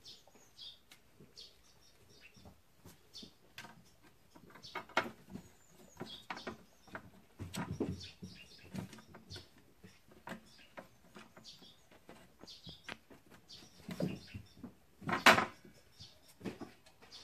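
Kittens playing around a plastic bucket on a concrete floor: scattered scuffs, taps and knocks, the loudest about fifteen seconds in, with short high chirps now and then.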